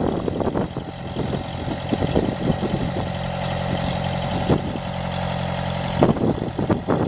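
Vermeer RT650 trencher's 76 hp Deutz diesel engine idling steadily; after about six seconds the even hum gives way to louder, irregular noise.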